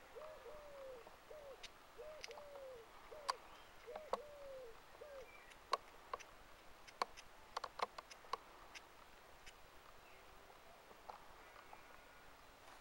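A pigeon cooing, repeating short phrases of a few low, arching notes until about five seconds in. Scattered sharp clicks and snaps come through the middle of the stretch and are louder than the cooing.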